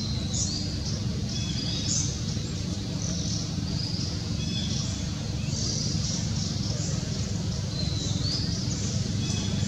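Birds chirping in the trees, short high calls repeating every half second to second, over a steady low hum.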